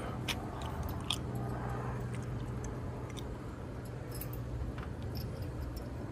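Light, scattered clicks and scrapes of small metal parts being handled and fitted onto an animatronic's metal frame, over a steady low hum.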